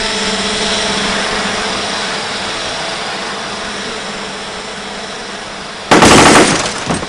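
A steady mechanical hum with several even tones. About six seconds in, a loud explosion goes off and dies away within a second: the quad-rotor's self-destruct charge detonating.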